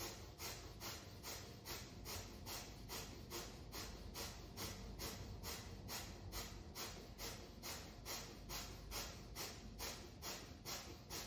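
Kundalini yoga breath of fire: rapid, even, forceful breaths pumped through the nose, about three a second, in a steady unbroken rhythm.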